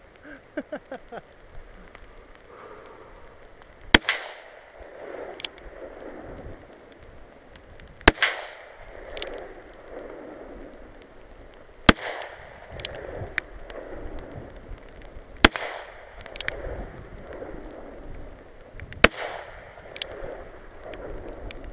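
Five gunshots from a gun firing light .45 Colt loads, spaced evenly about three and a half to four seconds apart, each followed about a second later by a fainter crack.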